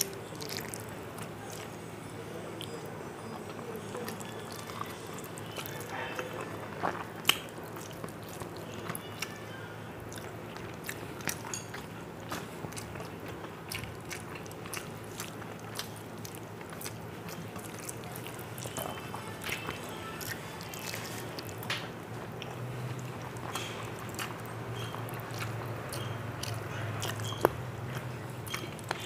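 Close-miked mouth sounds of a person eating rice and fish curry by hand: soft chewing with many small wet clicks and smacks, and fingers squishing the rice against a steel plate. A faint low hum sits underneath and gets a little louder near the end.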